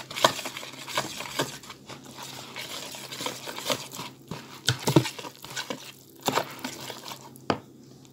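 Metal wire whisk stirring flour into a thick, crumbly dough in a plastic bowl: irregular scrapes and clicks of the wires against the bowl, stopping shortly before the end.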